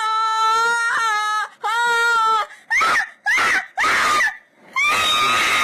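A woman screaming: two long, high-pitched screams held on one pitch, then three short shrieks, and a steady high-pitched sound starting near the end.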